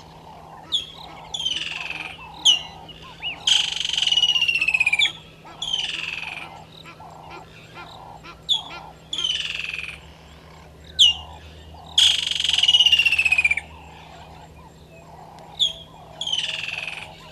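Blacksmith lapwings calling: short, sharp metallic notes mixed with longer harsh calls that fall in pitch, the longest about four and thirteen seconds in. A steady low pulsing, about two beats a second, runs underneath.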